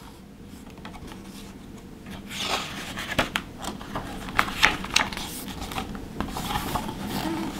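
A page of a large picture book being turned and handled: paper rustling with crisp crackles and clicks, starting about two seconds in.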